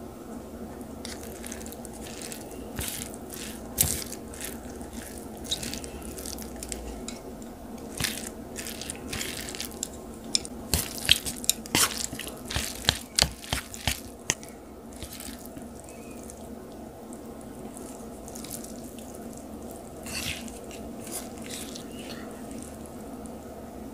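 Wooden chopsticks mixing sauce-coated thin noodles, shredded cabbage and fried egg in a bowl: wet, sticky squishing with short clicks, busiest around the middle, over a faint steady hum.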